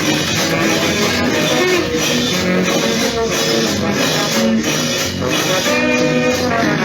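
Loud Latin dance music played over a street sound system, with guitar and a steady drum beat.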